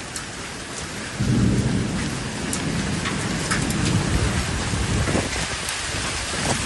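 Heavy rain pouring down during a storm, with a long rumble of thunder starting about a second in and lasting several seconds.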